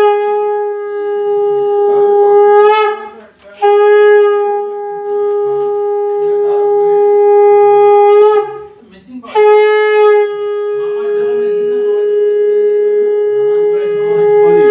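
Conch shell (shankha) blown in three long, steady blasts with short breaths between them, each sagging slightly in pitch as it ends. It is sounded as an auspicious call during a Hindu blessing.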